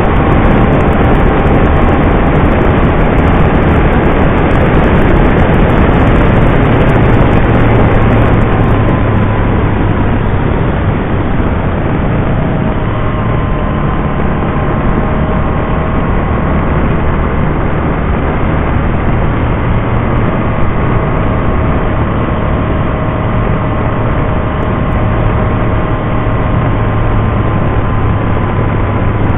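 Can-Am Spyder RT three-wheeled motorcycle cruising along: a steady engine hum under loud wind and road noise, easing slightly about ten seconds in.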